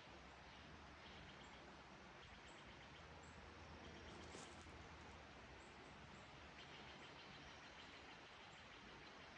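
Near silence: a faint steady hiss, with faint high chirps now and then.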